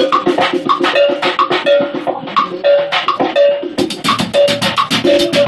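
A live band playing an up-tempo groove on drum kit and hand percussion, with a short pitched note repeating over the beat. About four seconds in, a fast, bright ticking rhythm joins the groove.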